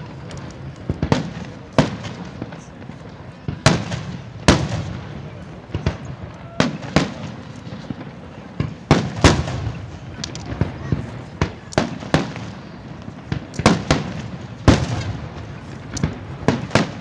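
Aerial fireworks shells bursting overhead: a string of sharp bangs at uneven intervals, roughly one a second, each followed by a brief echo.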